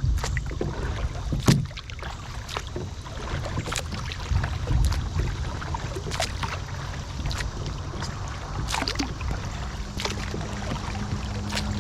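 Kayak paddle strokes: the blades dipping and splashing, with sharp knocks about once a second, over a low rumble. A steady low hum comes in near the end.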